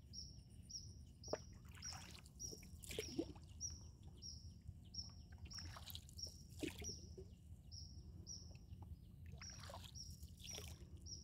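A hand paddle swishing and splashing through canal water in irregular strokes from a small wooden boat. Throughout, a faint high chirp repeats steadily about twice a second.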